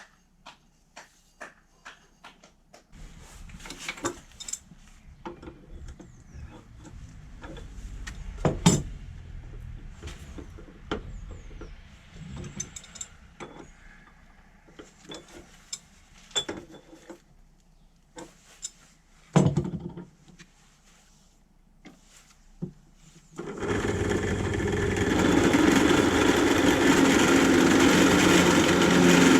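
Workshop handling noises, with light clicks, a low rumble and scattered knocks, including two sharp loud knocks. About three-quarters of the way through, a power tool's motor switches on and runs steadily and loudly.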